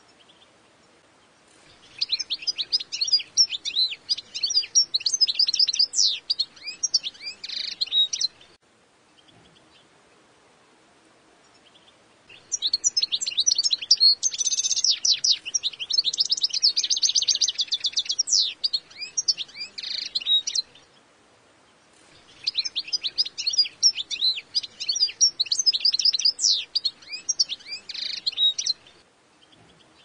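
European goldfinch singing in three long bouts of fast, high twittering, each about seven to eight seconds long, with pauses of a few seconds between them.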